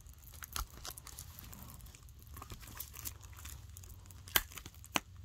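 Plastic shrink-wrap on a Blu-ray case crinkling and tearing as it is peeled off, with scattered sharp crackles, the loudest two near the end.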